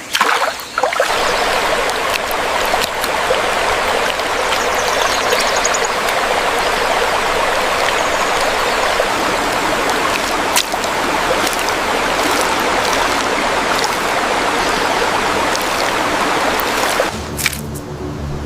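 Steady rush of running water, like a stream. It cuts off suddenly near the end, giving way to a quieter low steady hum.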